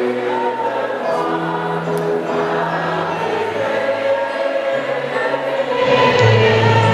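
A choir singing, many voices holding long sustained notes, swelling louder near the end.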